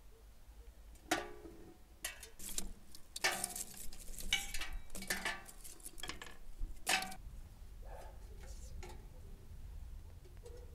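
Metal samovar parts clinking and clanking as they are handled and fitted together: lid, chimney pipe and body knocking against one another. A sharp clink about a second in, a quick run of clinks in the middle, and a last one about seven seconds in.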